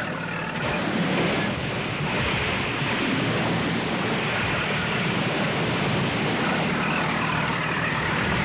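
A steady engine drone under the rushing hiss of sea wash and spray, as a motor lifeboat drives hard through heavy seas.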